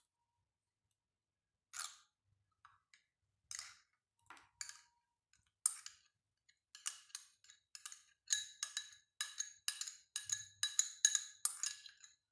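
Metal spoon scraping and tapping against a small cut-glass bowl, knocking thick chilli paste out of it. A few scattered clicks, then a quick run of light ringing clinks from about seven seconds in.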